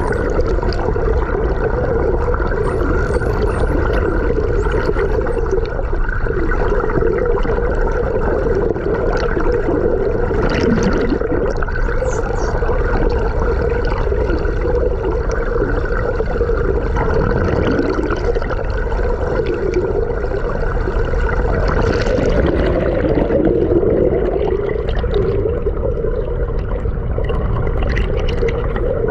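Steady underwater rushing and water noise picked up by the camera among a group of rough-toothed and Atlantic spotted dolphins. Faint high dolphin whistles come in the first few seconds, and a few short clicks follow later.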